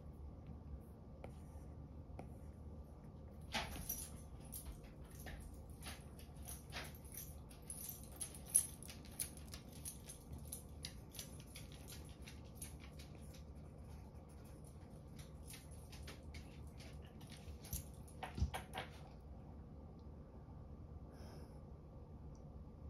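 Apple Pencil tip tapping and scratching on an iPad's glass screen in quick sketching strokes, a run of small ticks that starts a few seconds in and stops a few seconds before the end. A faint steady hum sits beneath.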